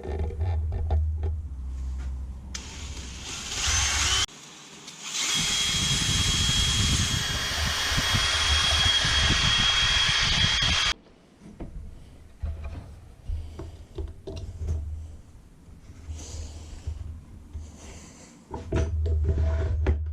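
Power drill boring into a wooden workbench, with a steady whine during its longest run of about six seconds in the middle, and shorter bouts of drilling and knocks of work on either side.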